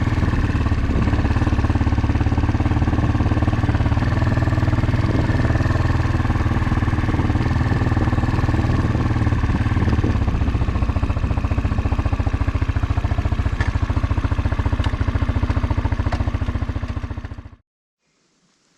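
Motorcycle engine running at a steady idle with a fast, even pulse, cut off abruptly near the end.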